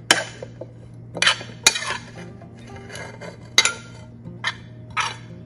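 A utensil clinking and scraping against a plate and a clay mortar, about seven sharp, irregular strokes as shredded green mango is pushed into the mortar.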